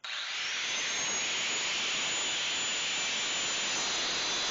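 Angle grinder with a thin cut-off wheel switched on, its whine rising over about the first second as the motor spins up, then running steadily as it cuts a slot into a steel chandelier arm.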